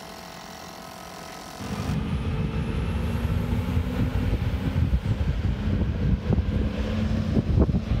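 A steady machine hum for about the first second and a half, then a sudden change to the loud low rumble of a diesel regional railcar running through the station below, with a steady engine tone and wind buffeting the microphone.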